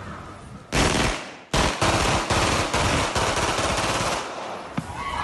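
Automatic gunfire: a short burst about a second in, then a long rapid string of shots lasting nearly three seconds that tails off near the end.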